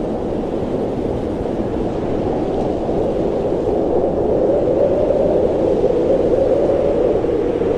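Blizzard wind blowing steadily, a low rushing that swells a little past the middle.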